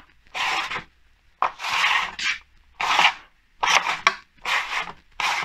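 A lead bending tool is rubbed in repeated rasping strokes along an aluminium threshold strip, about five strokes with short gaps between them, as the strip is folded over to a right angle against a clamped hardwood batten.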